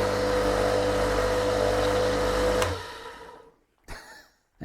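Old lathe's electric motor running at a steady speed, a steady hum with a held whine, then switched off about two and a half seconds in and winding down.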